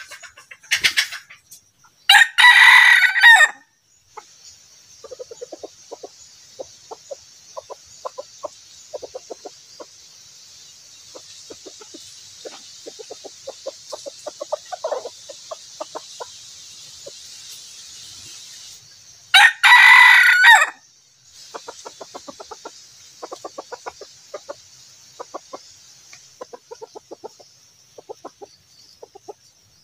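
Red junglefowl rooster crowing twice, each crow short at about a second and a half, with runs of low, rapid clucking between the crows.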